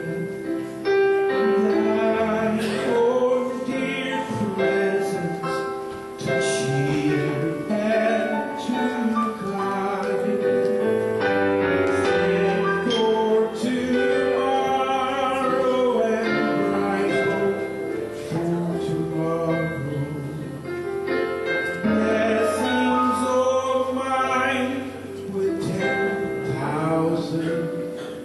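Church music: voices singing a hymn over instrumental accompaniment.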